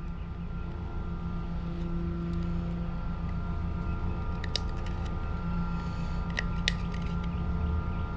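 A blade shaving and scraping the cut ends of half-inch plastic irrigation pipe, with a few sharp clicks around four and a half and six and a half seconds in, over a steady low mechanical hum.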